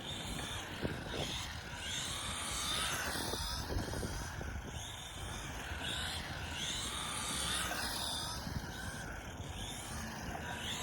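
Electric motor and drivetrain of a 1/14 Team Associated Reflex 14R Hoonicorn RC car whining, its pitch rising and falling every second or two as the throttle is worked on and off.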